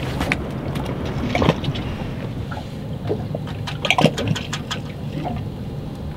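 Water lapping and sloshing against a boat's hull, with scattered knocks and clicks, the loudest about a second and a half and four seconds in.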